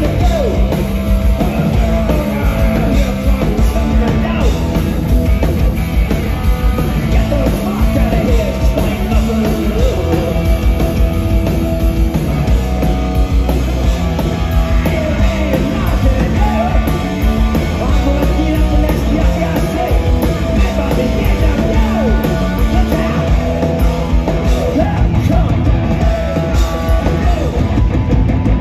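Live punk rock band playing loud: electric guitars, bass guitar and drum kit, with a singer.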